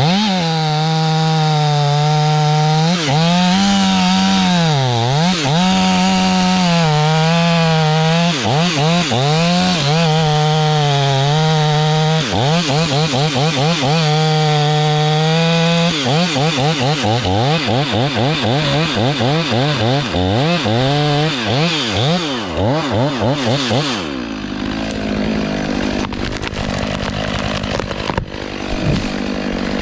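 Chainsaw running at high revs while cutting pine, its note sagging under load and recovering again and again. Later it rises and falls in quick pulses, then cuts off about three quarters of the way through, leaving a lower steady noise.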